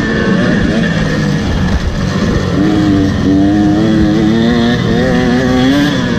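Motocross dirt bike engine running hard, its pitch climbing and dipping as the throttle is worked.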